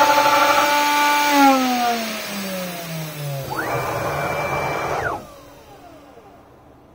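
CNC router spindle motor running with a steady whine, then switched off about a second in and spinning down with a falling pitch. Then the gantry's drive motors whine as the gantry traverses: the pitch rises quickly, holds steady and drops away as it stops, well before the end.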